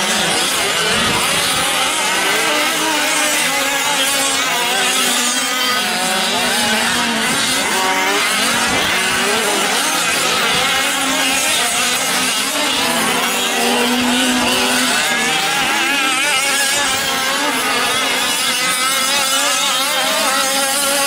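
Several fifth-scale gas RC trucks racing, their small two-stroke engines buzzing and revving up and down. The pitches waver and overlap as the throttles open and close.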